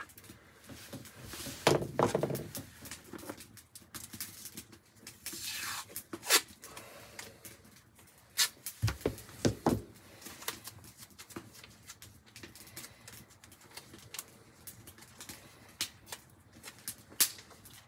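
Hand-work handling noise: scattered small clicks and light scrapes, a louder rustle about two seconds in, and a few dull knocks around the middle.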